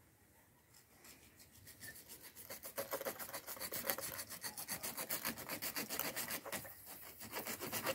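Fast, even rasping strokes from hand work on a PVC water pipe at the base of a wall. Faint at first, growing louder about two and a half seconds in, with a brief pause near the end.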